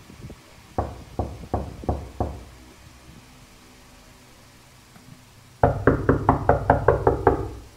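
Knocking on a door: five knocks, then after a pause a louder, faster run of about ten knocks.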